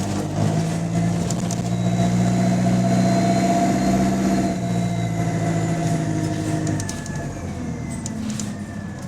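Bus diesel engine with an exhaust leak, running under load with a steady note that eases off about four to five seconds in and dies down further near the end.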